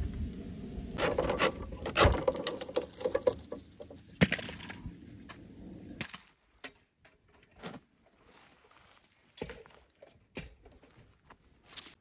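A long green vine being bent and wound into a hoop against a wall of upright sticks, the wood rustling, scraping and clicking. The handling is busiest over the first few seconds, then thins to scattered small clicks.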